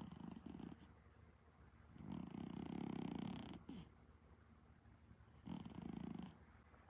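An Exotic Shorthair cat snoring in its sleep: three low, raspy snores about every two and a half to three seconds, the middle one the longest and loudest, with quiet breathing between them.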